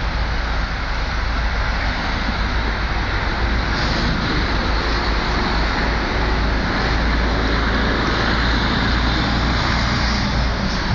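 Continuous vehicle and road-traffic noise: a steady low rumble with a rushing hiss over it, with no distinct events.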